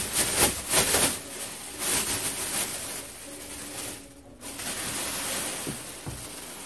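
A metallised foil emergency blanket being shaken out and unfolded, crackling and rustling in quick bursts, loudest in the first couple of seconds, with a brief pause about four seconds in before a softer rustle.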